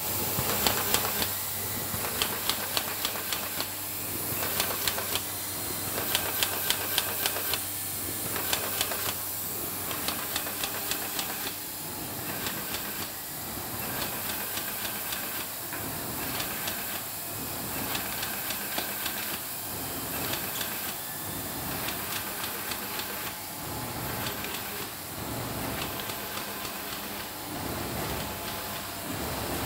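Hohner HHS Futura saddle-stitching line with its KDAL digital pile feeder running and feeding paper sheets: a steady hiss and low hum with groups of quick mechanical clicks repeating every second or two, plainer in the first half.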